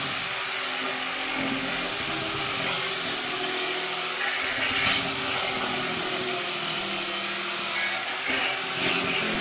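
Angle grinder running steadily while grinding old Bondo body filler off a car's steel quarter panel. The grinding noise flares brighter twice, about halfway through and near the end.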